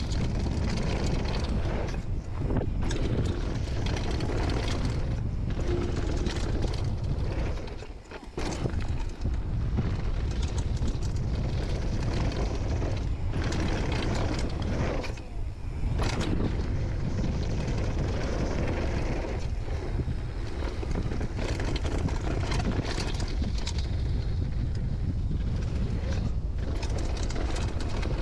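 Downhill mountain bike descending a dry dirt and gravel trail at speed: wind buffeting the microphone over tyre noise on the loose surface, with frequent knocks and rattles from the bike over bumps. The noise briefly drops away twice, about 8 seconds and about 15 seconds in.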